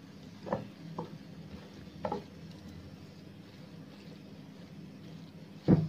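Wooden spatula stirring and scraping grated carrots frying in ghee in a steel pan, over a faint sizzle. A few soft knocks of the spatula against the pan in the first two seconds, and a louder knock near the end.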